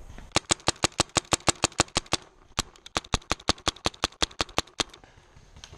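Paintball marker firing two rapid strings of shots, about eight a second, with a short pause between them.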